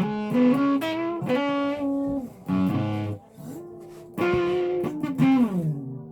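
Guitar being played: a string of single notes, held briefly with short gaps between them, some sliding up or down in pitch, ending on a downward slide.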